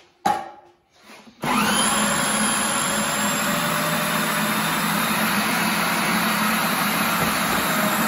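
Food processor switched on about a second and a half in, its motor running steadily as it beats butter and icing sugar into buttercream. A brief knock comes just before it starts.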